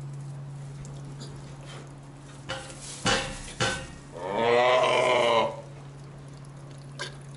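A cow moos once, loudly, for about a second, just past the middle; two loud knocks come shortly before it. A steady low hum runs underneath.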